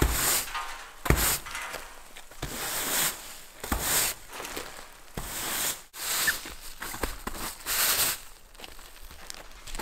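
Irregular scraping and rustling on a roof surface, roughly one to two strokes a second with a few sharp knocks: loose debris being cleared off a steep roof, with footsteps on it.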